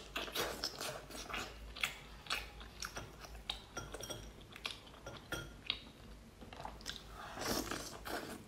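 Close-up mouth sounds of biting and chewing sea snail meat: many short, irregular wet clicks and smacks, with a denser, louder stretch near the end.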